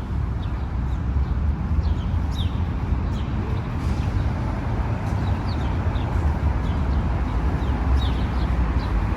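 Small birds chirping now and then, short falling chirps, over a steady low rumbling background noise.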